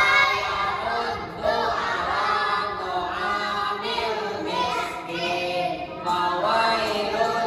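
A group of children singing together in unison without accompaniment.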